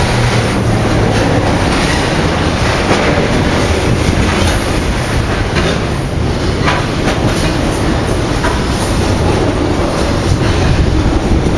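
Freight train's loaded container wagons rolling steadily past on the track, with occasional sharp knocks from the wheels.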